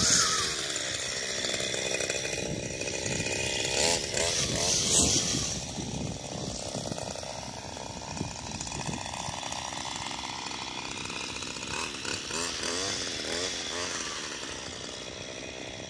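Gas-powered string trimmer (weed eater) running under throttle, its engine pitch rising and falling as it cuts grass along a curb. It is loudest in the first few seconds and grows fainter as it moves away.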